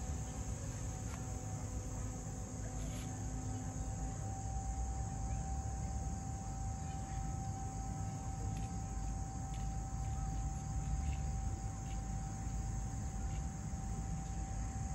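Insects trilling in a steady, unbroken high-pitched chorus, over a steady low rumble and a faint constant hum.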